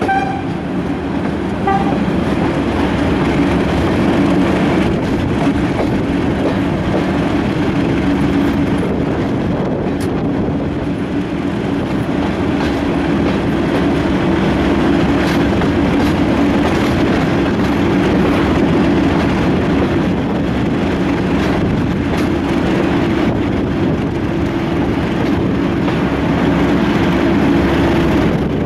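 Class 37 diesel locomotive's English Electric V12 engine working steadily under power, heard close up from an open carriage window over the running noise of the train on the track. Two brief high tones sound in the first couple of seconds.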